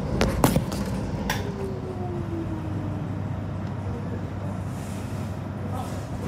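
Inside an electric suburban train: wheels click over rail joints a few times, then a whine falls in pitch and the running rumble settles as the train brakes into a station.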